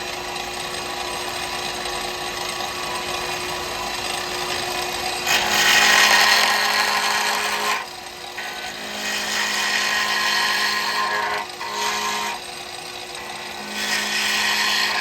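Wood lathe running at about 3,000 RPM with a steady motor hum and whine. About five seconds in, a 12 mm carbide cutter starts cutting the spinning cast pen blank, making three loud scraping cuts separated by short pauses.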